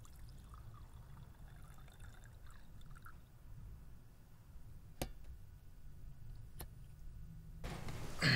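Liquid poured from a metal jug into a glass goblet, faint, for about the first three seconds. Two sharp clicks follow about five and six and a half seconds in, and a louder rush of noise starts in the last moment.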